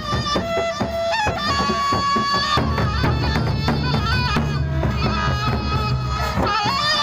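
Sasak gendang beleq ensemble playing: drums beating under a reedy wind melody of held notes and quick ornaments.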